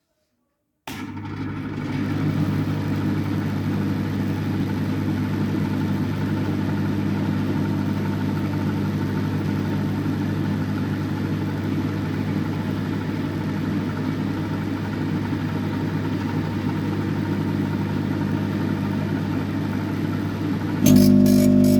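A modified microwave oven switching on at full power about a second in, then running with a loud, steady hum from its transformer and magnetron. Near the end it suddenly grows louder, with a few sharp clicks.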